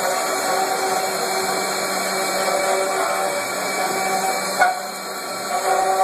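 Four-spindle rotary CNC router running and carving wooden balusters: a steady whine from the spindles over the hiss of cutting wood. A sharp click comes about three-quarters of the way through, and then it runs a little quieter for a moment.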